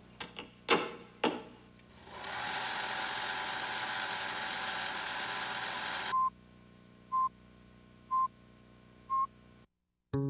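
A few sharp clacks, then a steady mechanical rattling hum for about four seconds that stops abruptly, followed by four short high beeps one second apart.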